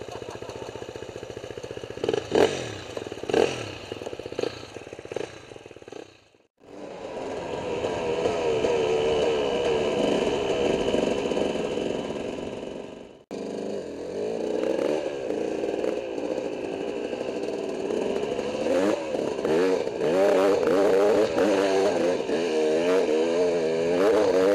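Dirt bike engine idling, with a few sharp knocks a couple of seconds in. Then the engine runs under way with the revs rising and falling as the bike is ridden.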